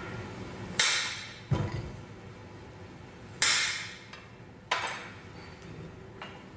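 A knife chopping the end off a cucumber: four sharp cracks and knocks about a second apart, then a quieter click near the end.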